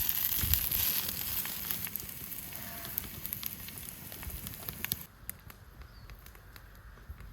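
Campfire crackling with many sharp pops and a steady hiss, dropping off abruptly about five seconds in to a quieter background with only occasional pops.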